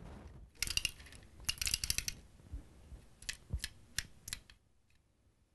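A run of sharp clicks and clattering, like hard objects being handled, with a dense cluster of rattles about half a second in, then four or five separate clicks around the middle.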